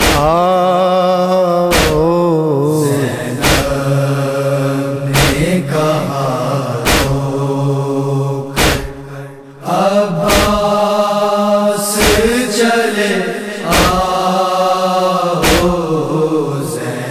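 A noha, the Urdu Muharram lament, chanted by male voices in long bending phrases over a steady low hum, with a sharp beat about every 1.7 seconds keeping time in the manner of matam.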